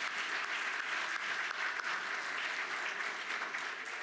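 Audience applauding steadily: a dense, even patter of many hands clapping.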